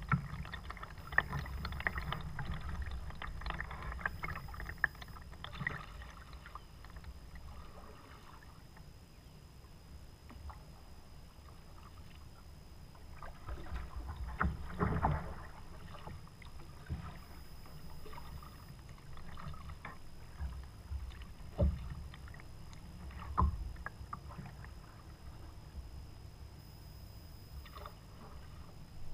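Kayak paddling on calm water: paddle strokes with water swishing and dripping. There are sharp ticks and knocks during the first few seconds, and a few louder strokes about halfway through and twice near three-quarters of the way.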